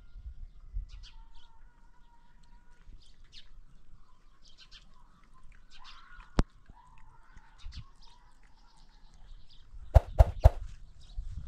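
Faint bird calls and chirps, with a single sharp click partway through and three loud, sharp knocks in quick succession near the end.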